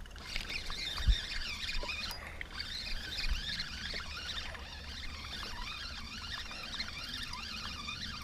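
A dense chorus of many small high chirping animal calls overlapping without a break, over a low rumble of wind on the microphone, with one short thump about a second in.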